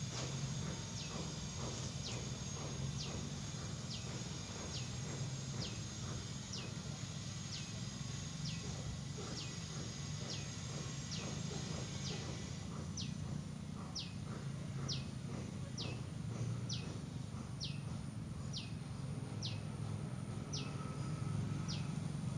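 Prenjak (prinia) calling: a long series of short, high, descending notes, about one and a half a second and very evenly spaced, getting louder about halfway through. A steady low rumble runs underneath.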